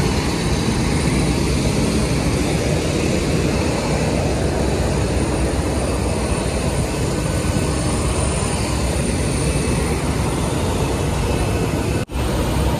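Steady, loud noise of jet aircraft on an airport apron: a deep rush with a thin high whine over it, cut off briefly near the end.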